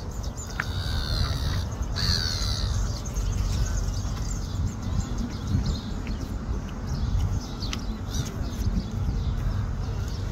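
Birds calling in the open: two high gliding calls in the first few seconds and scattered short chirps, over a steady low rumble.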